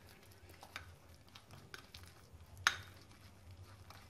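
A spoon stirring a thick paste of ground roasted chickpeas and soft cheese in a ceramic bowl: soft scraping with light clicks against the bowl, one sharper click about two and a half seconds in.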